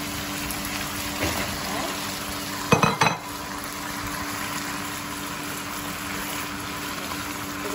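Onion-tomato curry masala sizzling steadily in a frying pan as raw potato chunks are tipped in and stirred with a wooden spoon, with a short clatter a little under three seconds in.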